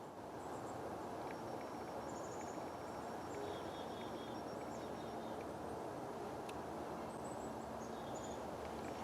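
Small birds chirping, short high repeated notes scattered throughout, over a steady outdoor background hiss.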